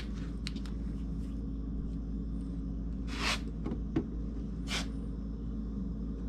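Steady low hum with two short rustling whooshes and a light knock about four seconds in, typical of a handheld camera being moved and brushed around an engine on a stand.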